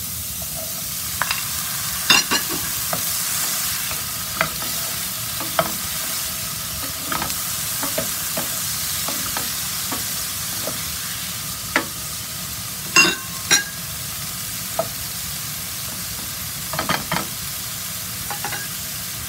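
Diced carrots, onion and green peas sizzling steadily in a nonstick frying pan while a spatula stirs them, with scattered clicks and scrapes of the spatula against the pan, the sharpest about two seconds in and a pair around thirteen seconds.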